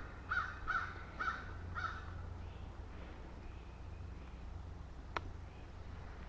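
A bird calling in a series of short, repeated calls, four of them in the first two seconds, followed by a single sharp click about five seconds in.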